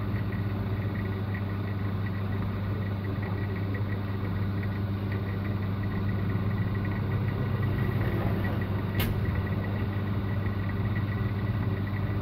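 Industrial overlock machine running steadily while sewing a picot edge on fabric: a continuous motor hum with a faint fast ticking from the stitching mechanism. A short sharp click about nine seconds in.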